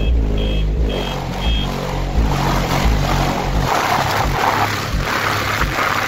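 Music played very loud through a car's wall of four Genius Audio G9 subwoofers (1500 W RMS each), dominated by deep bass. Four short high beeps sound in the first second and a half, and a rough, noisy buzz rises over the bass from about two seconds in.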